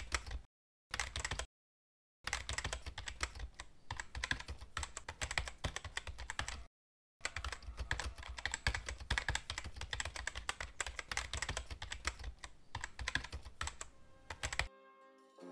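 Rapid keyboard typing clatter, a sound effect matched to on-screen text being typed out, with brief pauses about half a second in, about two seconds in and near seven seconds. Near the end it stops and brass music comes in.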